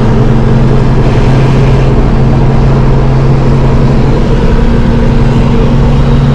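Steady engine and road noise from a 1989 Toyota 4Runner driving along, with a constant low hum. This is a test drive after the front wheel hubs were rebuilt, and no knock or grind from the hubs stands out.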